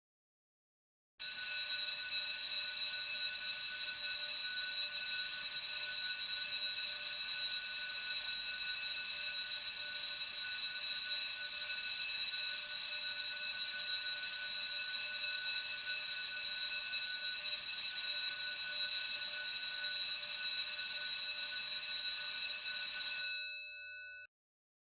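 School bell ringing continuously for about twenty seconds, starting abruptly about a second in. Near the end the ringing cuts off, and the bell's gong hums on briefly before fading out.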